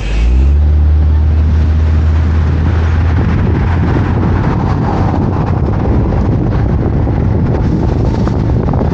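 Road traffic: a loud, low engine rumble comes in sharply at the start and eases after about three seconds, over steady traffic and road noise.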